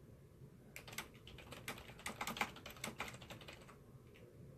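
Typing a short message: a quick, irregular run of light key taps starting about a second in and thinning out near the end.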